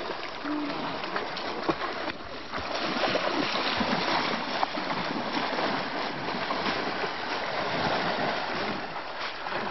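Several people running and wading through shallow lake water, splashing steadily, then swimming out with splashing strokes.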